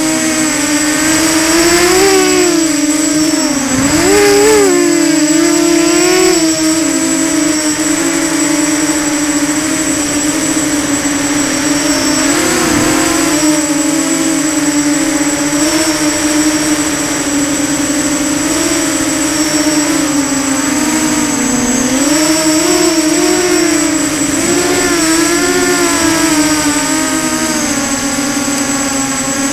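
Electric motors and propellers of a small radio-controlled aircraft buzzing loudly, heard from its onboard camera, with a high steady whine above; the buzz rises and falls in pitch as the throttle changes.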